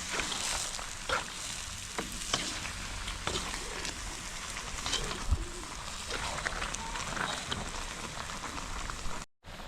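Food frying in a pot: a steady sizzle with scattered sharp pops and crackles. The sound drops out briefly near the end.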